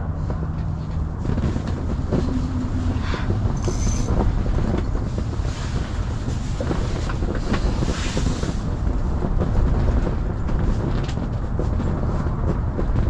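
Steady low rumble of wind on the microphone, with a few faint scattered clicks.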